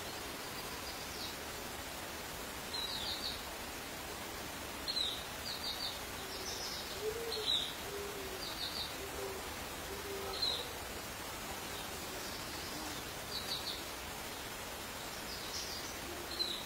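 Outdoor birdsong: short high chirps come in quick groups of two or three notes again and again, with a few short low hooting calls in between, over a steady background hiss.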